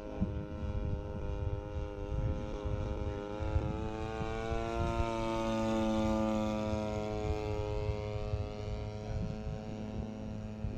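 Stinger 26cc two-stroke gas engine of a radio-controlled Beechcraft Staggerwing biplane model in flight, making a low pass. The engine note grows louder, peaks about six seconds in as the plane goes overhead, and drops in pitch as it moves away.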